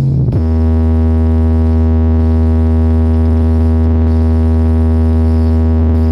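Loud, steady low electronic bass note with a buzzy stack of overtones, played through a large DJ sound system during a sound check; it moves to a new note just after the start and then holds at one pitch.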